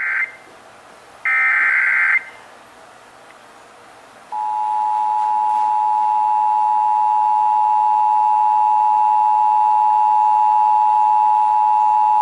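Emergency Alert System SAME header: a loud burst of warbling digital data tones, cut in at the start, and a second burst about a second in lasting about a second. Then, about four seconds in, the EAS attention signal begins: a steady two-tone alarm held to the end, which marks the start of an emergency alert broadcast.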